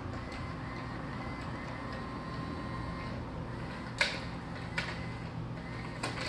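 A battery-powered electronic cat toy running with a faint steady whir under room hum, with a few sharp taps about four, five and six seconds in, the first the loudest.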